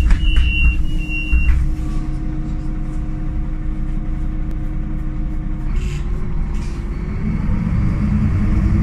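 Diesel engine of a Solaris Urbino 18 III articulated bus (Euro 3, Voith automatic gearbox) running steadily, then revving up with rising pitch from about six seconds in as the bus pulls away. Three short high beeps sound in the first second and a half.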